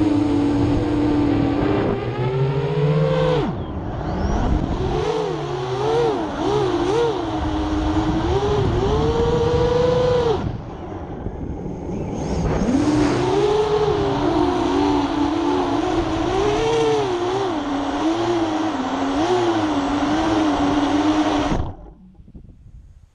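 FPV drone's motors and 7-inch HQ 7040 three-blade props whining, the pitch rising and falling constantly with the throttle. The throttle drops off briefly about three and a half seconds in, and again for about two seconds around ten seconds in. The sound cuts off abruptly near the end.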